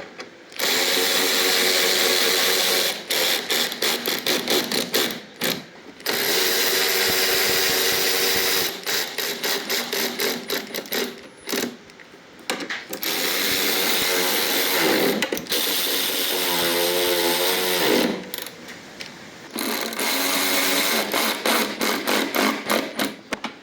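A small handheld power tool's motor running in repeated bursts, the trigger worked so that it stutters on and off rapidly at times and holds steady at others, with short pauses between bursts and a rise in speed partway through.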